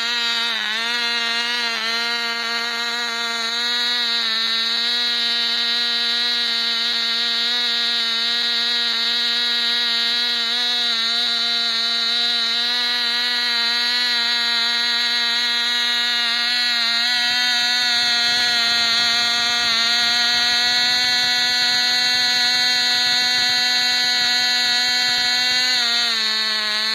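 Cox Babe Bee .049 glow engine running at full speed with a steady high-pitched note, the pitch wavering slightly in the first two seconds before settling. Right at the end the note starts to drop as the engine winds down. The owner calls this engine thoroughly flogged out and very sensitive on the needle.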